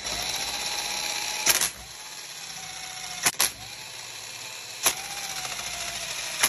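Power tool motor running in short repeated runs of about a second and a half, a sharp click between each run. Its whine rises at the start of each run and then sags slightly in pitch.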